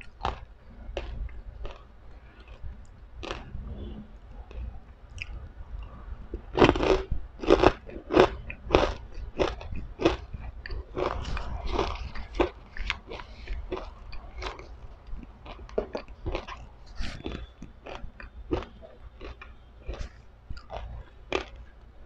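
Crunching and chewing of crisp fried pork rinds (pork chicharon), a rapid run of loud crunchy bites from about six to nine seconds in, then softer, sparser chewing crunches.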